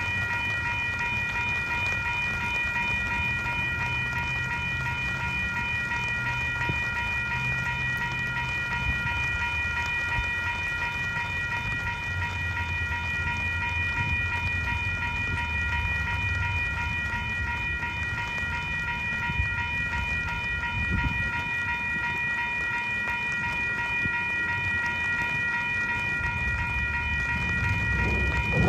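Railroad crossing warning bell ringing steadily while the signals flash, over the low rumble of a switching freight train.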